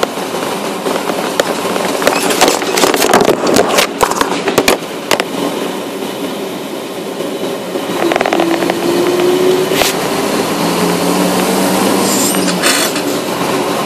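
A small vehicle rolling off a wooden-plank bridge onto pavement. The tyres rattle and knock over the planks and the deck's end joint in the first few seconds, then run smoother with steady rushing noise. From about eight seconds in there is a faint whine, rising slightly.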